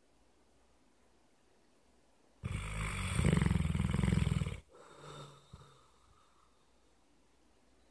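A sleeping dog snoring: one loud snore lasting about two seconds starts a couple of seconds in, followed by a softer, shorter breath.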